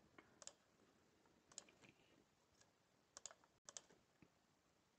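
Faint, scattered computer keyboard keystrokes and mouse clicks, a few sharp clicks with some in quick pairs, against near silence.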